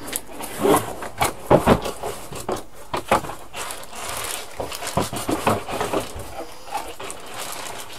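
Handling noises: an irregular run of knocks, taps and rustles as a box is rummaged through for a small bag of hard-drive screws and bracket. The knocks are thickest at first and thin out in the second half.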